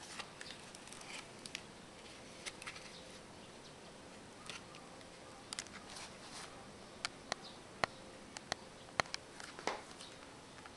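A paper pop-up card being handled: soft rustles of stiff card stock and scattered light clicks and taps, with a run of sharper clicks in the second half.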